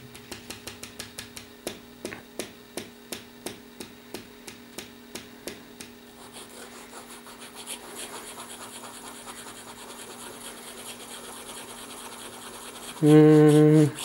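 Fine iridium-tipped nib of an Inoxcrom IXC Nature fountain pen scratching on notebook paper as it is worked to get the ink flowing from a freshly fitted cartridge. It makes short separate strokes, about three a second, for the first five seconds, then a steady fast scratching. A short voiced sound comes near the end.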